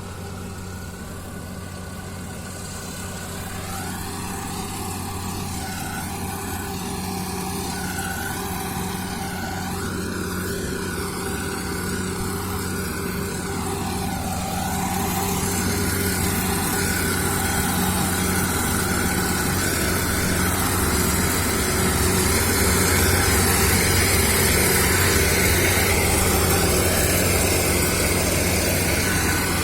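Engine of a rice-harvesting machine running at a steady pitch, growing steadily louder.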